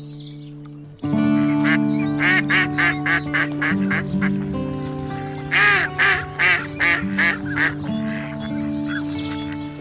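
A duck quacking, a rapid run of short quacks from about a second and a half in until near the end, over background music with held chords.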